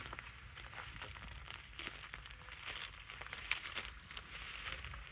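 Footsteps crunching and crackling through dry brush and debris, irregular clicks and rustles that are loudest about three and a half seconds in.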